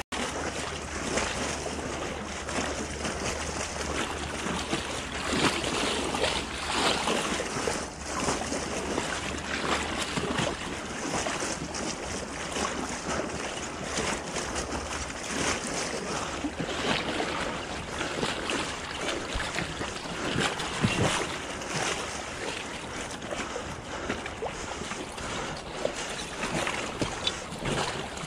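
Wind buffeting the microphone and water splashing and rushing along the hull of a small inflatable boat under way, as an even hiss broken by irregular slaps.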